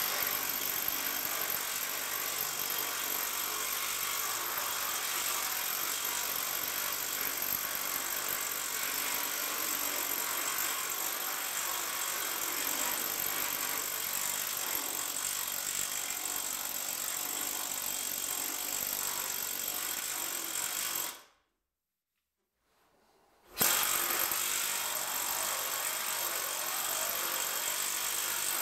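Magnum pneumatic planishing hammer running steadily, its air-driven die rapidly hammering a steel repair panel to stretch out the low spots. The sound cuts out completely for about two seconds near the end, then resumes unchanged.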